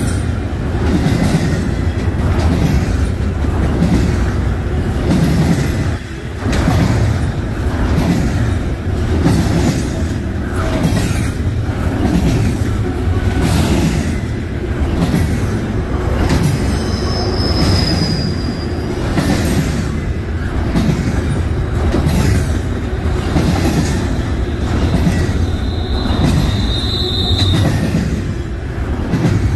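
Doublestack intermodal freight cars rolling past close by: a loud, steady rumble of steel wheels on rail with rhythmic clacking. Two brief high-pitched wheel squeals sound, one about halfway through and one near the end.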